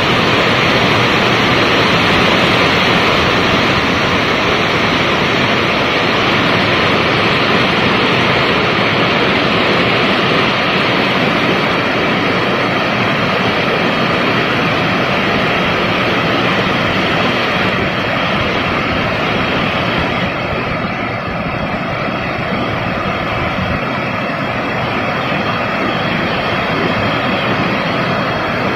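Heavy rain falling steadily over city rooftops, an even hiss that eases a little after about twenty seconds.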